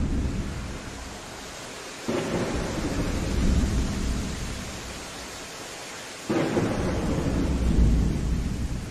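Thunderstorm: steady rain with thunder. A rumble is dying away at the start, and two new claps break in suddenly about two and six seconds in, each rolling off over a few seconds.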